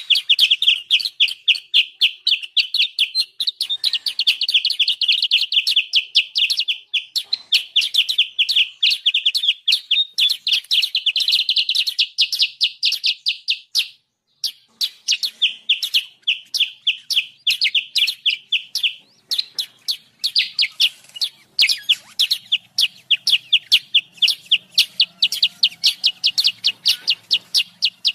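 Songbird lure recording: rapid, repeated high chirping notes, several a second, in long excited runs with brief breaks near the middle.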